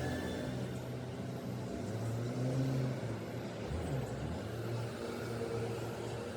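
Steady low rumble of a vehicle engine, like nearby road traffic.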